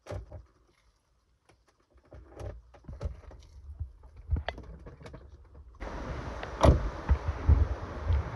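Faint scattered clicks and rustles in a quiet car cabin. About six seconds in, a steady rush of wind on the microphone begins, with a sharp knock soon after and a few low handling thumps.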